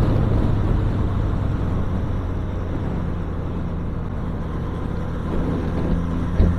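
Motorcycle engine running steadily at road speed under a rush of wind and road noise, with a brief knock about six and a half seconds in.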